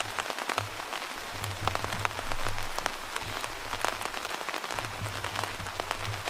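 AI-generated sound effect of rain falling on a tent: a dense, steady patter of individual drops hitting the fabric over a hiss of rain, with a low rumble underneath.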